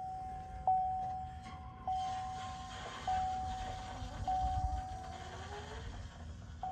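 Chevrolet Silverado 2500 HD's warning chime sounding a steady repeating tone, struck again about every second, over a low hum from the stock in-tank electric lift pump as it primes the L5P Duramax fuel system after a filter change, pushing out air as it builds pressure.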